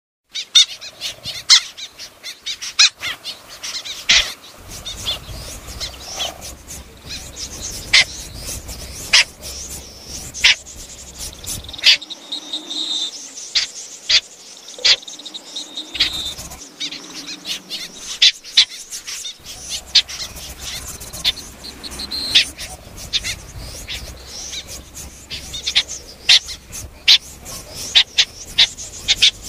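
Snipe calling: short, sharp call notes repeated irregularly, a few a second, over a low hum that drops out for a while in the middle.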